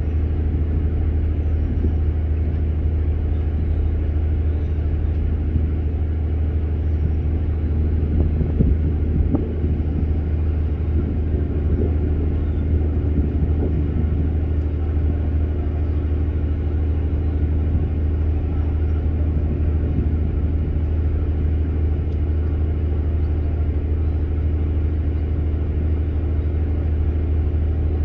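Steady, low engine rumble with a deep hum that does not change.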